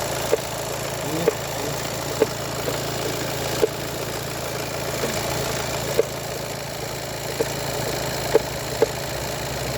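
Volkswagen Golf 7 1.6 TDI four-cylinder diesel engine idling steadily, with sharp knocks at irregular intervals of about one to one and a half seconds. The owner traces the knock to the timing belt.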